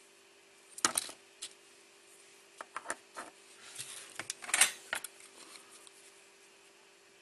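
Irregular clicks and knocks of a small circuit board and a soldering iron being handled and set down on a cardboard-covered workbench, a few about a second in and a busier cluster in the middle, the loudest about four and a half seconds in.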